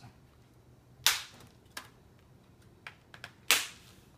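Plastic snap clips of a laptop screen bezel popping loose as the bezel is pried off: two sharp snaps, about a second in and near the end, with a few smaller clicks between.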